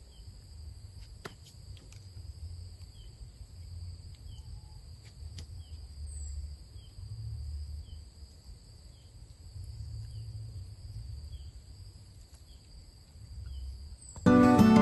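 Forest insect chorus: several steady high-pitched drones at different pitches, with a short soft chirp repeating a little more than once a second and a low rumble of wind beneath. Acoustic guitar music comes in near the end.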